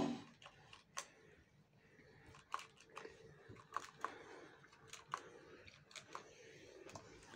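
Steam iron being pressed down and lifted along a fabric edge: a short thump right at the start, then light, sharp clicks and taps about a second apart over faint hiss.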